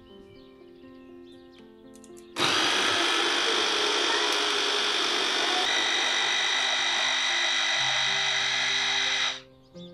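Electric mini chopper's motor running steadily for about seven seconds, blending soaked red lentils, eggs and yogurt into a smooth batter. It starts abruptly about two seconds in, its pitch shifts slightly midway, and it cuts off near the end.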